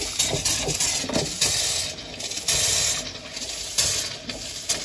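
Kitchen faucet spitting and sputtering as trapped air purges from the hot water line, an uneven stream splashing into a stainless steel sink.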